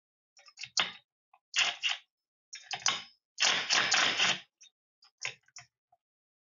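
Impact wrench hammering in several short bursts, the longest about a second, with small clicks between: loosening the capped nuts on a bicycle motor's cylinder head.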